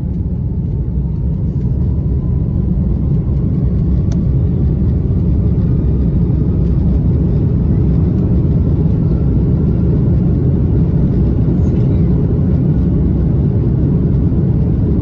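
Airbus A330-300 cabin noise: a loud, steady low rumble of engines and airflow, growing slightly louder over the first couple of seconds, with a faint whine rising slowly in pitch.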